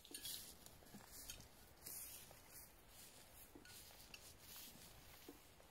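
Faint, irregular rustling and brushing of footsteps through dry grass and low shrubs, with a few soft ticks, loudest in the first couple of seconds.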